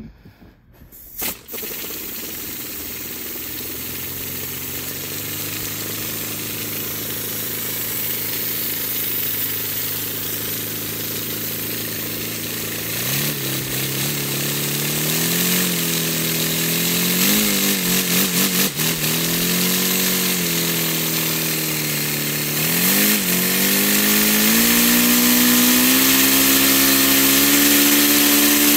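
Paper four-cylinder radial air engine running on compressed air from an air compressor: a loud rush of air starts about a second and a half in. From about halfway a whirring hum joins it, its pitch wavering up and down as the engine speeds and slows, then climbing steadily near the end as the engine runs faster under the pressure.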